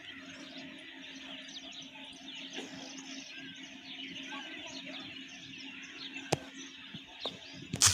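Small birds chirping busily over a faint steady low hum, with a few sharp clicks near the end.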